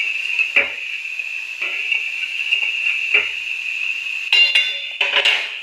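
A metal spoon knocking and clinking against a metal pan of simmering tempering water with green chillies and mustard seeds, a few separate knocks then a quick cluster of clinks near the end, over a steady hiss.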